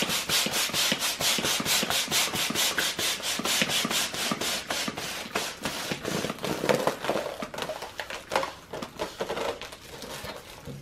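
Handheld plastic balloon hand pump worked in quick strokes, about four or five a second, each stroke a rush of air, inflating an 18-inch foil balloon. The strokes grow fainter and more uneven toward the end.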